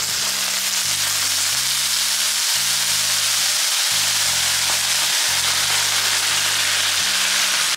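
Water poured onto a hot electric hot plate of gyoza, sizzling and hissing loudly and steadily as it hits the hot surface: the steaming stage of pan-frying gyoza. It ends abruptly.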